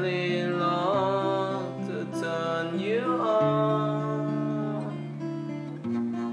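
Acoustic guitar strummed, its chords changing about every two and a half seconds, with a voice singing long sliding notes without words over it.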